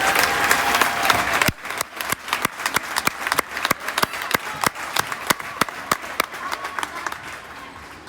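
Crowd applauding and cheering in a gym, which drops off suddenly about a second and a half in to scattered individual claps that thin out and fade.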